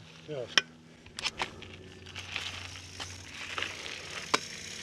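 Mountain bike rolling slowly over a dry dirt trail, its tyres crunching and crackling on grit, with a few sharp clicks and knocks from the bike.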